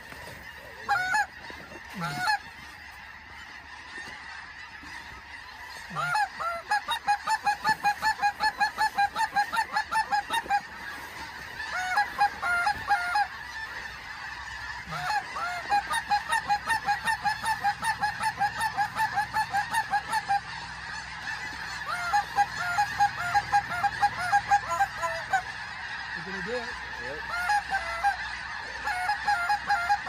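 Snow geese calling: two loud honks near the start, then from about six seconds in a run of rapid, evenly spaced high honks, about four a second, breaking off briefly and starting again.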